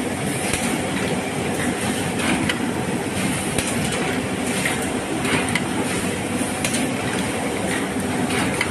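HL QSZ380 automatic three-sided book trimmer running: a steady mechanical clatter with repeated sharp clacks from its feed and clamping mechanism as book blocks move through.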